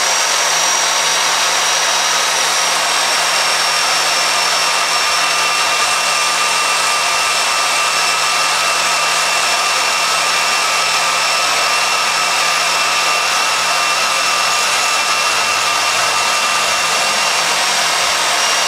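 Milwaukee portable bandsaw (portaband) running steadily while cutting through a knife blank: an even motor whine with several steady high tones over the hiss of the blade.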